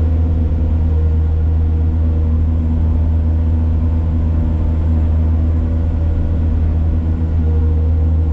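A heavy machine's engine running steadily with a deep, even drone.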